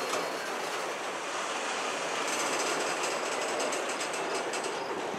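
Freight train's autorack cars rolling past on steel wheels, a steady rail rumble and clatter. A high, thin squeal joins from about two seconds in.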